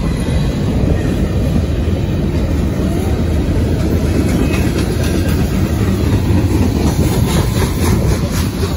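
Freight cars of a CSX train rolling steadily past at a grade crossing, with the clickety-clack of wheels over the rail joints.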